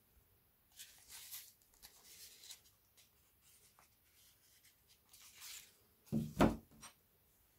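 Handling noises from working on a turntable's dust-cover hinge: scattered scraping and rubbing of plastic and metal parts, then a couple of knocks about six seconds in and a small click after them.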